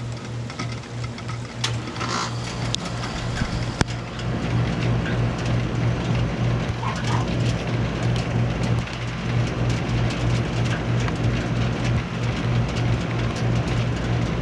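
2012 Bryant Legacy Line two-and-a-half-ton central air conditioner outdoor unit starting up: a low electrical hum that throbs several times a second, joined about four seconds in by a fuller, louder steady running sound as the unit comes up to speed. Light rain patters.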